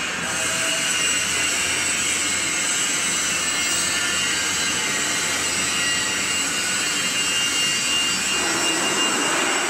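Plastic screw conveyor running, its electric drive motor giving a steady machine whir with a few high steady tones. A little after eight seconds in, a lower hum joins in.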